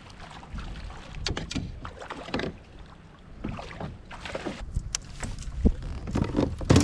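Water slapping and lapping against a Hobie Pro Angler 14 kayak hull in choppy, windy water, with irregular knocks and splashes every second or so.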